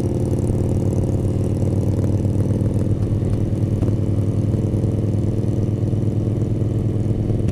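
Motorcycle engine running at a steady, unchanging pitch, heard through a helmet-mounted camera microphone.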